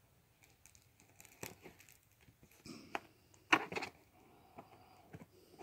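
Faint, scattered rustles and light taps of a hand handling a shrink-wrapped board game box, with the sharpest click about three and a half seconds in.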